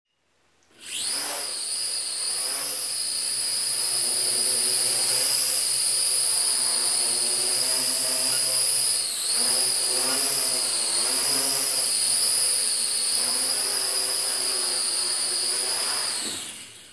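LaTrax Alias quadcopter's electric motors and propellers whining in flight. The pitch rises as they spin up about a second in, dips briefly around the middle, and the sound dies away near the end.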